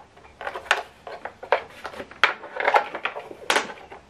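Irregular plastic clicks and taps from an optical cable plug being fumbled against the tight, recessed optical input of an LG S65Q soundbar's plastic casing, the loudest a little over two seconds in and about three and a half seconds in.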